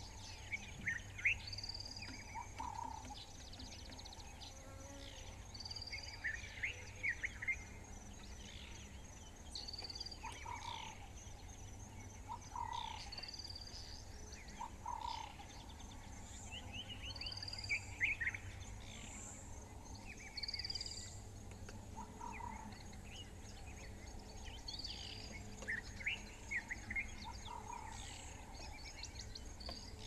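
Dawn chorus of several birds calling and singing, one repeating a short high whistle every two to three seconds, over a steady, high, finely pulsing insect trill.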